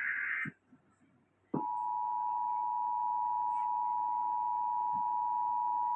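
The end of an Emergency Alert System digital header burst, a harsh buzzy data warble, cuts off about half a second in. After about a second of silence the EAS two-tone attention signal starts, a steady, unbroken beep held at one pitch.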